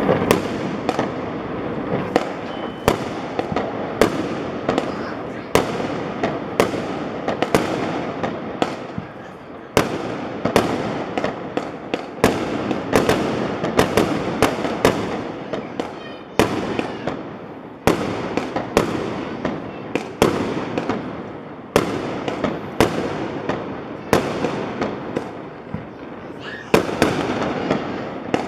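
Fireworks going off one after another: sharp bangs every second or two over continuous crackling.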